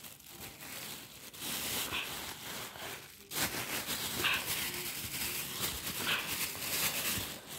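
Thin plastic bag crinkling and rustling as a hand rummages through it, louder from about three seconds in.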